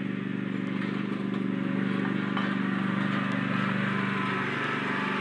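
Riding lawn mower's engine running steadily, with a small shift in pitch near the end.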